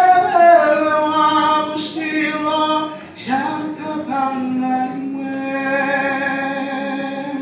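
Singing with long held notes, the last note held for about four seconds before it stops.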